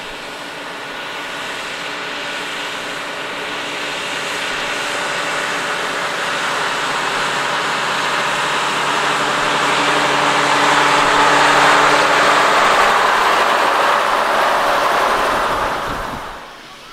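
A truck's engine running as it draws closer, growing steadily louder to a peak about twelve seconds in, then dropping away sharply near the end.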